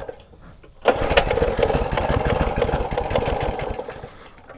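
A Coleman mini bike's small single-cylinder engine catches suddenly about a second in, runs for about three seconds and fades out as it dies. It is a hard start on an engine that the rider suspects flooded after lying on its side.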